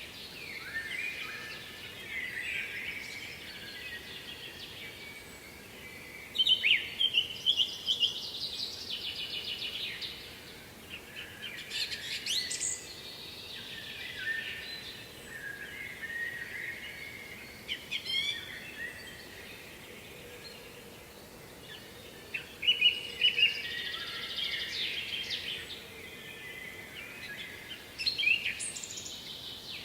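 Songbirds singing: several bursts of quick chirps and trills a few seconds apart, over a faint steady background hiss.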